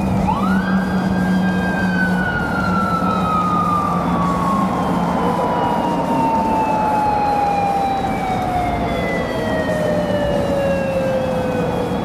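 Japanese police motorcycle's siren: one long wail that rises sharply at the start, then winds slowly down in pitch, signalling the car ahead to pull over. A steady low hum runs beneath it.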